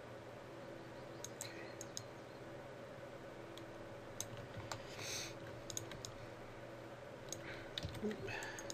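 Scattered clicks of a computer mouse and keyboard at a desk, with a cluster of clicks near the end, over a steady low electrical hum.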